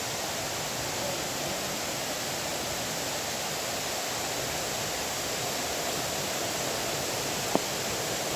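Waterfall rushing: a steady, even roar of falling water, with one brief sharp click about three-quarters of the way through.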